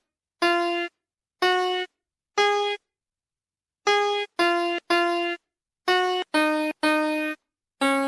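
VTech Smartville train station toy's electronic keyboard playing single piano-like notes one at a time, each cut off cleanly, in a simple children's-tune pattern. There is a short pause about a third of the way in.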